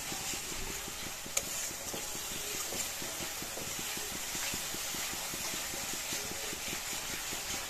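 Spice paste with a splash of water sizzling and bubbling in a metal karai as it is fried down, stirred with a metal spatula, with a sharp tap of the spatula about a second and a half in.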